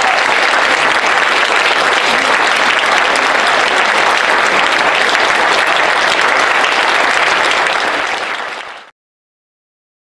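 Audience applauding steadily, with dense clapping that fades quickly near the end and then cuts off to silence.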